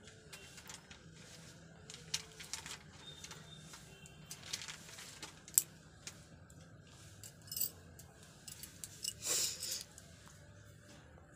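Scattered small clicks and light rustling of something being handled, with one sharp click about halfway through and a short hissing rush of noise about nine seconds in.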